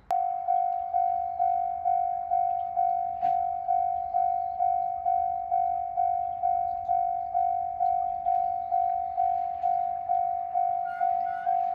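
Japanese railway level-crossing warning bell starting suddenly and ringing a steady repeated tone, about two strikes a second, each fading quickly: the signal that a train is approaching the crossing.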